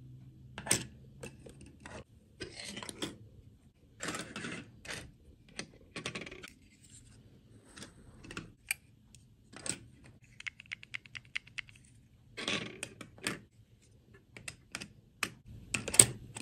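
Small plastic dolls and their moulded plastic dresses being handled and set down on a tabletop: scattered clicks and taps with brief rubbing sounds. A quick run of fine ticks comes about halfway through, and the sharpest tap comes near the end.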